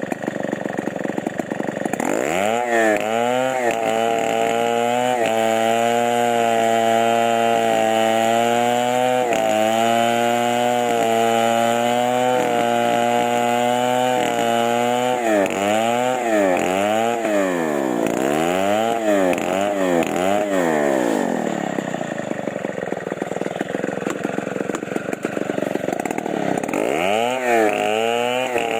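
Petrol chainsaw engine idling roughly, then revved up about two seconds in and held at high revs. It is then blipped up and down repeatedly, runs rougher and lower for a few seconds, and is revved up again near the end.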